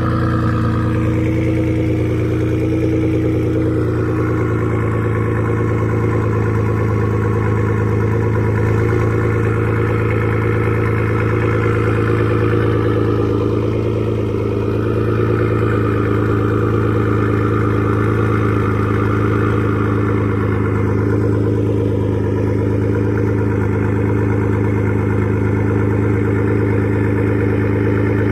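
Ford EcoBoost twin-turbo V6 idling steadily after a cold start, through catless downpipes and a resonator-deleted Corsa exhaust.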